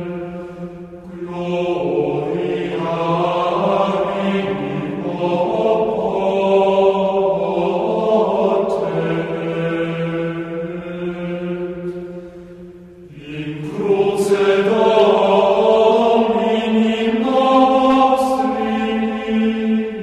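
Background music of slow, chant-like voices holding long notes, in phrases that pause briefly about a second in and again about twelve seconds in.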